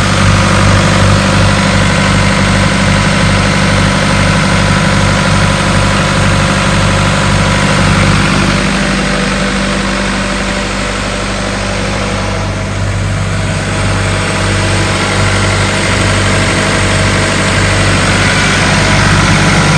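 John Deere diesel engine of a towable Ingersoll-Rand air compressor running steadily, sounding healthy.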